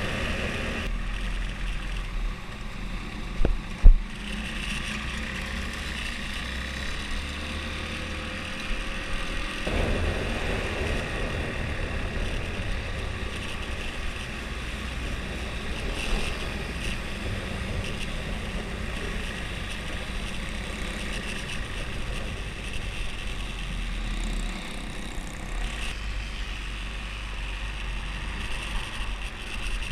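Husqvarna Svartpilen 401's single-cylinder engine with its stock exhaust running while riding, with wind rushing over the microphone. The engine pitch climbs slowly from about five to ten seconds in, as the bike accelerates. There is one sharp, loud knock about four seconds in.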